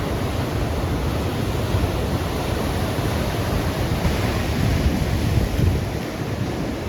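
Ocean surf breaking and washing up a sandy beach, with wind buffeting the microphone; one wave surges louder about four to five seconds in.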